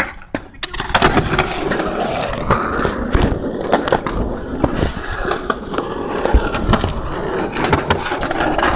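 A skateboard rolling, its wheels grinding steadily with scattered clicks and knocks from the board, starting about a second in.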